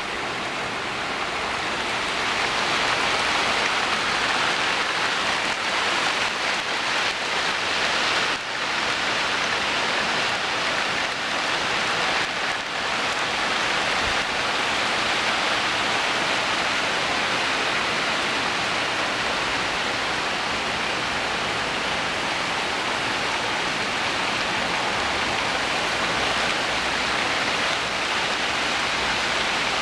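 Hard rain falling steadily, a dense, even hiss of drops.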